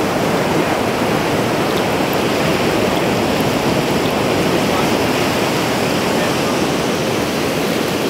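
Shallow water running steadily over sand where it flows into the sea, a constant even rush.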